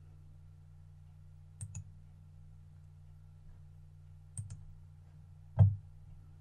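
Computer mouse button clicks: two quick press-and-release double clicks, then a single louder click near the end, over a low steady hum.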